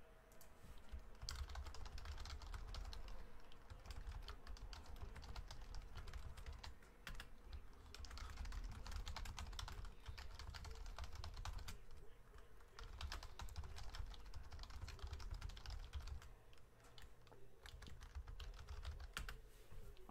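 Typing on a computer keyboard: runs of rapid keystrokes broken by short pauses.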